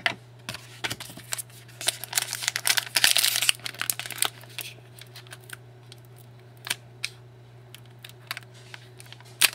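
Trading-card pack wrapper crinkling and tearing as a hard-to-open pack is worked open by hand. There is a dense patch of rustling in the middle, then scattered small clicks of handling, over a steady low hum.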